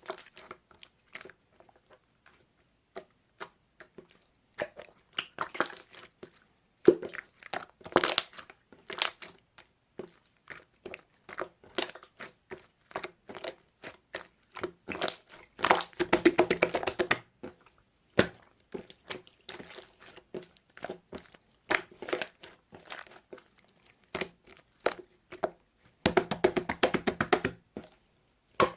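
Slime being squeezed, poked and stretched by hand, giving sticky clicks and air-bubble pops, with two dense runs of rapid crackling about halfway through and near the end.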